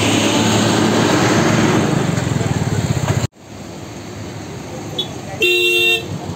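Loud steady traffic noise with an engine hum. It cuts off abruptly and is followed by quieter passing traffic, then a vehicle horn sounds once for about half a second near the end.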